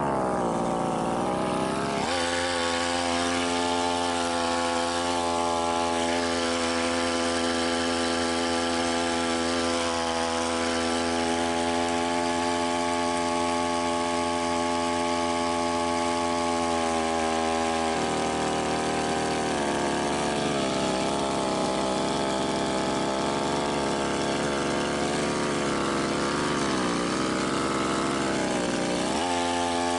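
Brush cutter engine running at high throttle, its pitch steady for much of the first half, then dropping lower and wavering as the spinning blade cuts into weeds and bogs the engine, dipping and picking up again near the end.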